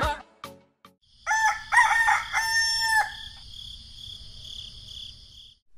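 Rooster crowing once, a cock-a-doodle-doo of a few short notes and a longer held final note, starting about a second in. A steady high-pitched background tone runs under it and continues for a couple of seconds after the crow.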